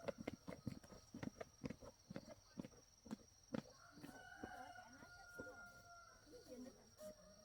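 Faint rooster crowing: one long held call about four seconds in. Before it comes a string of irregular sharp knocks or taps.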